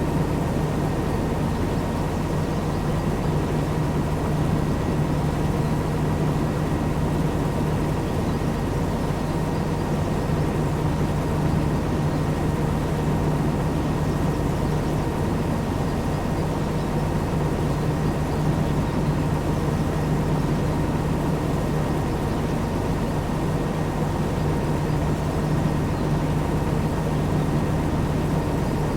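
Heavy farm machinery running steadily under load: a constant low engine drone with a faint high whine over it, unchanging throughout.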